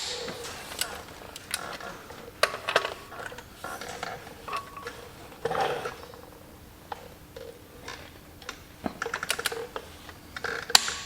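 Scattered metallic clicks and clinks of hand tools working the flywheel bolts, with short squeaks from a chair now and then, one near the end.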